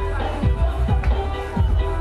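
Dance music played loud through a big carnival sound system, with heavy bass kick drums that drop in pitch, a little over two a second, under a steady melody.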